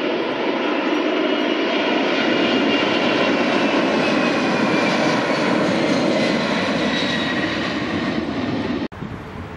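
Boeing 747 freighter's jet engines at takeoff thrust as it climbs away: a steady, loud roar with whining tones that slowly fall in pitch. It cuts off suddenly near the end.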